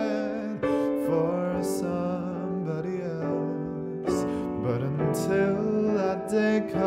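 Music: a slow, tender ballad with piano and a sung vocal line, retuned to 432 Hz.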